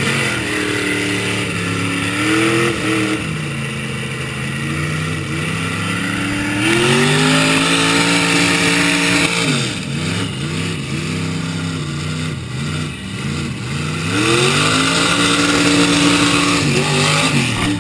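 Diesel engine of a lifted monster-style pickup on giant tires, revving hard under load in a tug-of-war pull and belching black smoke. The revs climb about two, seven and fifteen seconds in, and drop back around ten seconds and again near the end.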